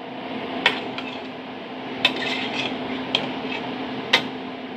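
A metal spoon clinking and scraping against a metal cooking pot as chopped green bell pepper is added and stirred into a simmering stew. Several sharp clinks, the loudest near the end, over a steady low hum.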